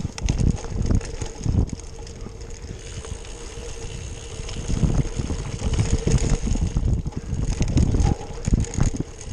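Wind buffeting the microphone in uneven gusts of low rumble, over a faint steady hum, as during a ride.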